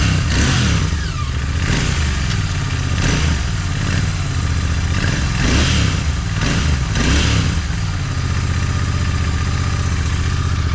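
Royal Enfield Continental GT 650's 648 cc parallel-twin engine running after two months standing unused, revved with the throttle about five times and then settling to a steady idle for the last few seconds.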